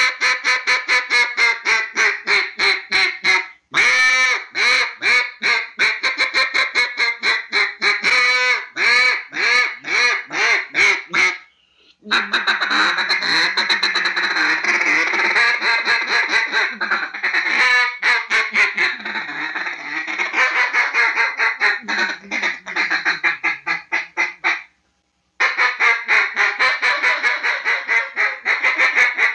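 Mallard quacking in rapid runs of short, loud quacks, broken by two brief pauses. In the middle the quacks come denser and run together in an unbroken stretch before the quick runs start again.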